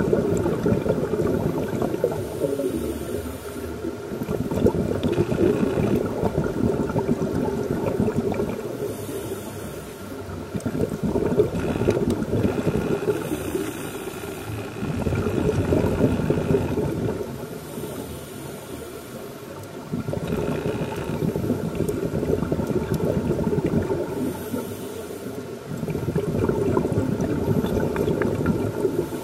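Scuba diver breathing underwater through a regulator: a hiss on each inhale alternating with a long bubbling rush of exhaled air. The cycle repeats every several seconds.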